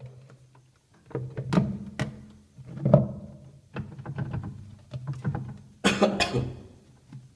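Irregular plastic clacks and knocks from hands working the pulsator (wash plate) in the tub of a Sanyo top-load washing machine, with a burst of several quick knocks about six seconds in.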